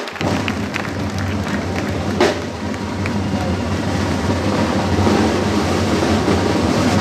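Drum corps of medieval-style side drums playing together in a fast, continuous roll that starts suddenly and holds steady.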